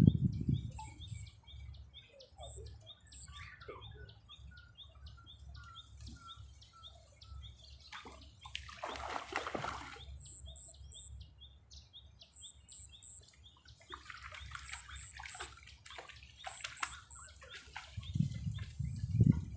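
Small birds chirping repeatedly in quick short calls, with a rapid string of lower notes a few seconds in. A short rushing noise comes about nine seconds in, and gusts of strong wind buffet the microphone near the end.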